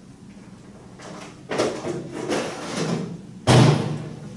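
A single loud thump about three and a half seconds in, after a stretch of soft, indistinct noise.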